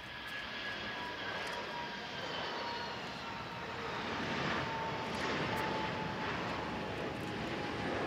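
Tupolev Tu-204 twin-turbofan airliner landing and rolling out: an engine whine with slowly falling tones over a rushing noise that grows louder as the aircraft rolls past.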